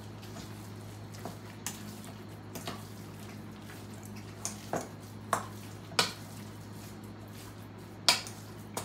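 A metal utensil stirring thick chicken salad in a stainless steel bowl: irregular clinks of metal on metal, a few louder ones in the second half. A faint steady low hum sits underneath.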